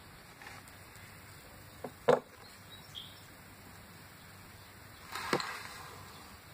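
Two short, sharp knocks about two seconds in, the second one loud, then a brief rustle with a click a little past five seconds, over faint room noise.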